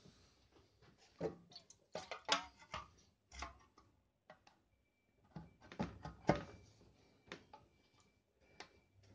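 Hard plastic and metal knocking and clicking as a Briggs & Stratton fuel tank is set onto a small engine and pressed into place by hand. There is a run of knocks over a couple of seconds, then a second cluster a few seconds later. A faint steady high tone sits in the background in the second half.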